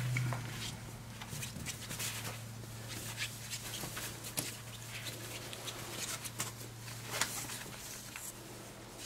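Four-week-old Pembroke Welsh Corgi puppies moving about on a cloth sheet: scattered soft scratches and rustles of paws and fabric, over a steady low hum.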